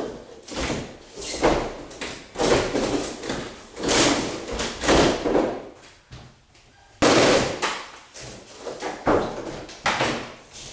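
A door panel being struck and forced through from behind: about a dozen irregular bangs and crunches, with a longer grinding stretch about seven seconds in.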